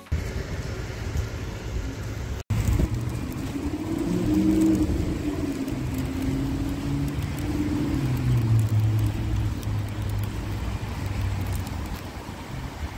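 A motor vehicle's engine running over a low traffic rumble, its pitch rising and falling as it goes by. The sound cuts out for an instant about two and a half seconds in.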